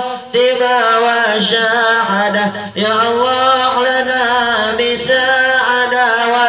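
Male voice chanting an Arabic devotional chant in long, drawn-out melodic notes that bend and waver, with a brief breath break near the middle.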